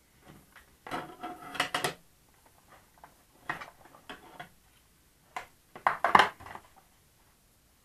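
Clicks and clatter of a clear plastic ruler and a small plastic control horn being handled, set down and slid against a wooden workbench and a foam wing. There is a cluster about a second in, a few short taps in the middle, and a louder burst near the end.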